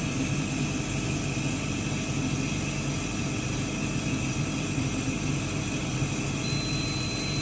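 Laser cutter and its fume extraction running with a steady hum. About six and a half seconds in, a steady high-pitched electronic bleep starts and holds: the machine signalling that the etching job is complete.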